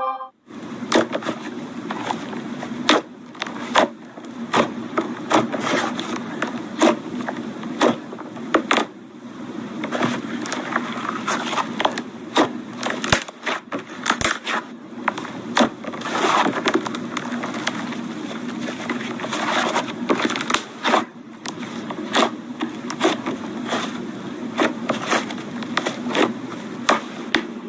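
Slime being squeezed, poked and stretched, giving a run of irregular sticky clicks, pops and crackles.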